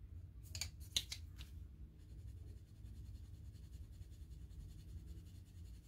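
Faint scratching of a Castle Arts colored pencil shading a swatch on paper, after a few light clicks in the first second and a half.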